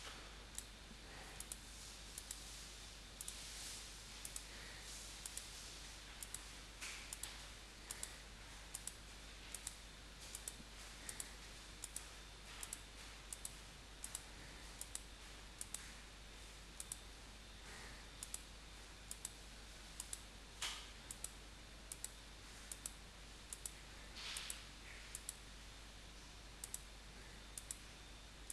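Computer mouse button clicked over and over: faint, sharp clicks, often in pairs, about one to two a second, over a low steady hiss.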